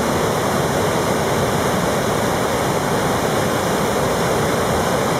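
Swollen river in flood rushing through big whitewater rapids and standing waves: a steady, unbroken rush of water.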